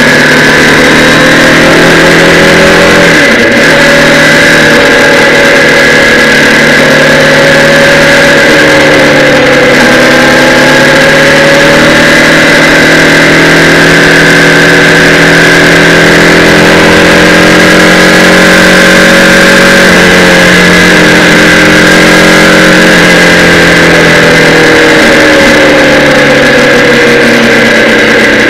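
Kawasaki Z800's inline-four engine running under way, recorded from a camera mounted on the bike, its note dipping and climbing again several times with the throttle, over a constant rush of wind on the microphone.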